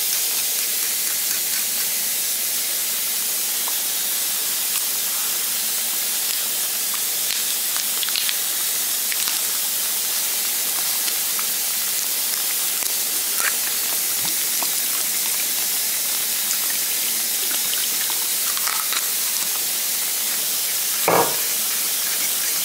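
Thickening sauce sizzling steadily in a hot wok, with a few faint ticks and one sharper knock near the end.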